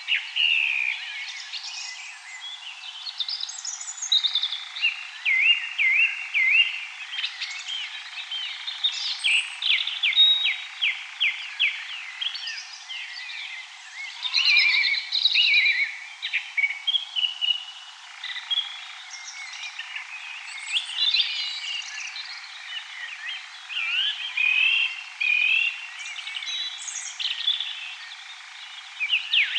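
Dawn chorus of many songbirds singing and calling over one another, with a fast, even trill about a third of the way in. The recording has its low end cut away, so it sounds thin and bright.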